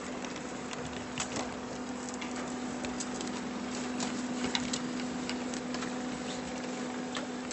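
A steady low mechanical hum, swelling slightly in the middle, with scattered light clicks and taps.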